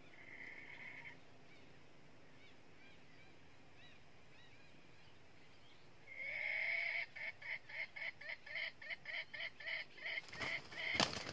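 Red junglefowl rooster calling: a short call at the start, then about six seconds in a long squawk that breaks into rapid repeated cackling, about four calls a second. A few sharp clattering knocks near the end are the loudest moment.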